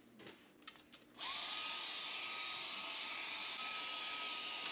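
Small electric pet hair clippers switched on about a second in. The motor spins up to a steady high whine over a loud hiss. A few light clicks come before it starts.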